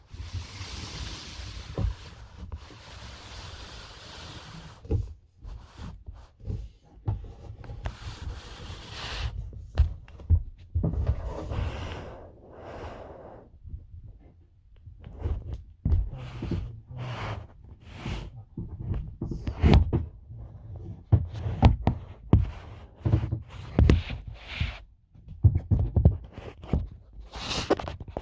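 Irregular knocks, thumps and scraping as backing plates are pulled by wires into place against the inside of a plastic kayak hull, with stretches of rustling in the first few seconds.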